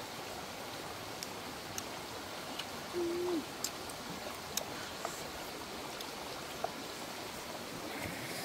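Steady outdoor background rush with scattered small sharp clicks, and one short low hoot-like tone about three seconds in that dips at its end.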